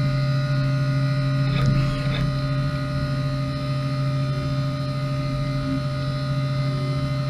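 Haas VF2 vertical CNC mill running with a steady hum made of several fixed tones, with a short rattle about a second and a half in.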